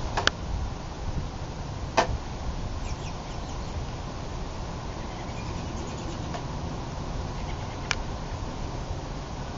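Snowstorm ambience outdoors: a steady rushing noise with a low, unsteady wind rumble on the microphone. It is broken by three sharp clicks: just after the start, about two seconds in, and near the end.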